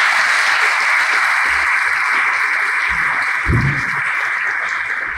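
Audience applauding, steady clapping that begins to die away near the end, with a short low sound about three and a half seconds in.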